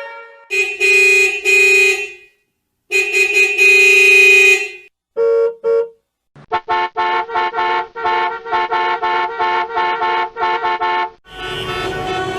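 Horn honking: two long honks, two short beeps, then a fast run of short honks, about three a second. Near the end a steady vehicle engine and traffic sound takes over.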